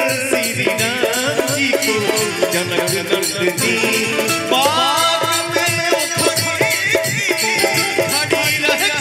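Live band playing an instrumental interlude in a Bhojpuri devotional song: a keyboard melody over fast, steady percussion with a rattling beat, and a quick run of rising notes about halfway through.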